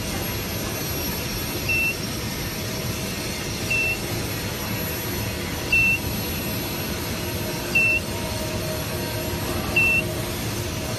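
Induction heating power supply's control unit beeping: a short high beep about every two seconds, five times, over the machine's steady air-cooling hum with a faint high whine.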